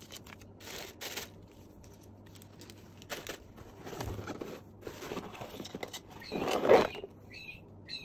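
Paper and cardboard rustling as a cardboard mailer box is packed and its lid folded shut by hand, with a louder scrape and press about six and a half seconds in as the lid closes.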